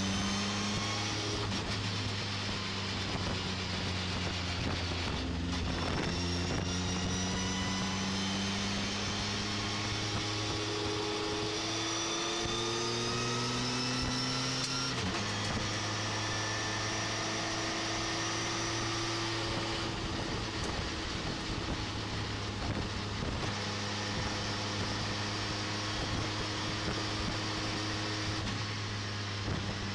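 Race pickup truck's Vauxhall XE 2.0 four-cylinder engine heard from inside the cabin, pulling hard, its pitch climbing through long stretches of acceleration. There are gear changes about five seconds in and again about fifteen seconds in.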